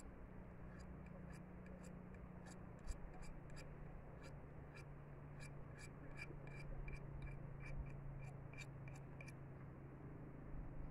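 Bolo knife blade shaving a stick down into a barbecue skewer: a run of short, crisp cutting clicks, a few a second, that stop about a second before the end. A steady low hum runs underneath.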